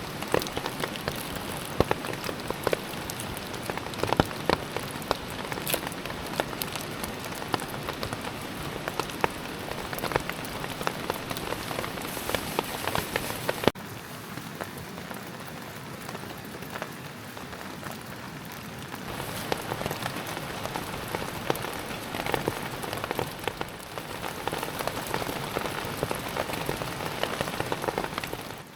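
Steady rain falling, with many separate drops striking close surfaces. The sound drops a little in level about halfway through.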